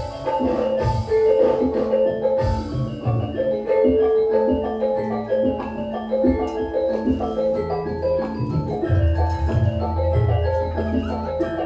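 Javanese gamelan music: bronze metallophones play quick runs of struck notes over a steady held tone, with deep drum strokes underneath.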